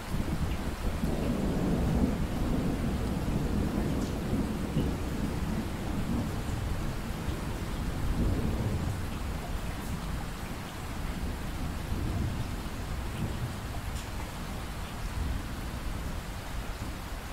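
Steady rain hiss with a long, low roll of thunder that is strongest in the first half and dies away toward the end.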